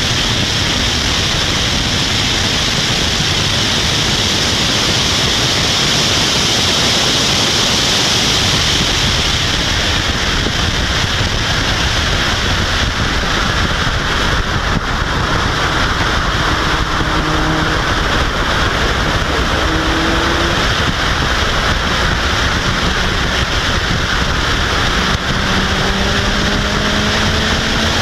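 Steady wind roar on the microphone of an open-cockpit Caterham R400 at track speed. The car's four-cylinder engine comes through only faintly, climbing in pitch in the second half as the car accelerates. The audio jack had come disconnected, so the engine feed is missing and wind dominates.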